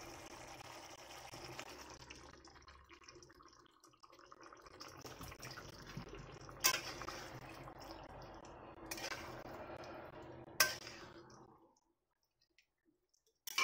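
Marinated chicken pieces are slid into a pan of simmering spiced gravy and stirred with a metal spatula. The liquid makes a steady, faint bubbling wet sound, broken by three sharp knocks or scrapes of the spatula against the pan. The sound cuts off suddenly about two seconds before the end.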